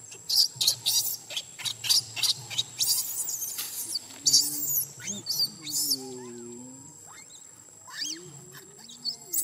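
Baby macaque giving a rapid string of high-pitched squeals and cries for about the first six seconds, then two more short squeals near the end, over a steady high insect drone.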